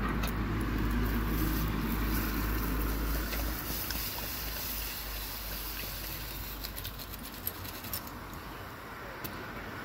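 Garden lawn sprinkler spraying a jet of water in a steady hiss, with a low rumble that fades out about three and a half seconds in and a few sharp clicks in the second half.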